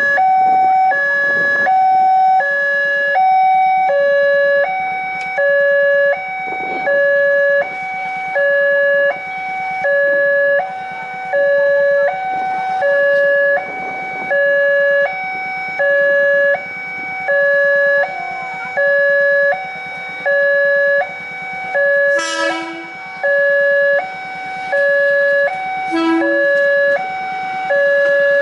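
Railway level-crossing warning alarm sounding: two electronic tones, a higher and a lower, alternate about every half second and repeat steadily. Twice near the end a short different sound cuts in briefly.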